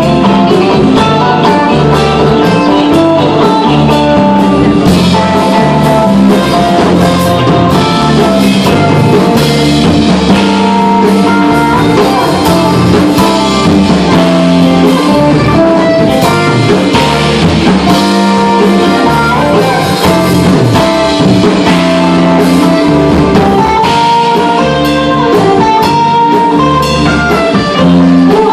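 Live rock band playing a song: electric guitars and bass over drums, recorded from far back in the room.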